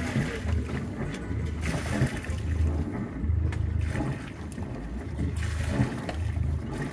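Wind buffeting the microphone aboard a small boat on the water, an uneven low rumble in gusts with a hiss of water and air above it.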